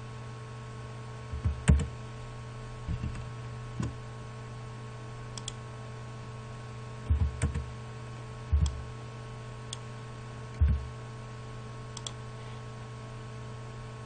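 Scattered clicks of a computer mouse and keyboard, some with a dull low thump, about a dozen times at uneven spacing over a steady electrical hum.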